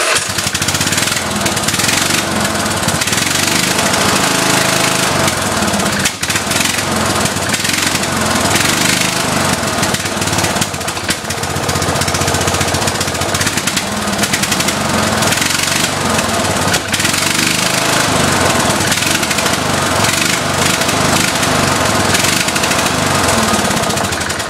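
Lawn mower engine on a homemade off-road mower, freshly started with the choke pulled out and running loud and rough. Its speed rises and falls as the throttle is worked, and it shuts off at the very end.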